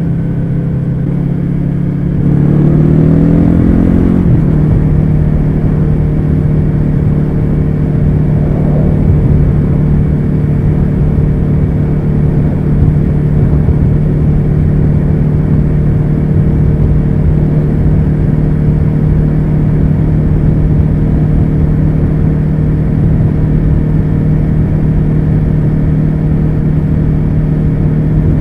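Yamaha YZF-R3's 321 cc parallel-twin engine through an Akrapovič carbon slip-on exhaust, under way on the road. It rises in pitch for about two seconds as the bike accelerates, then settles into a steady drone at cruising speed, with wind rushing over the microphone.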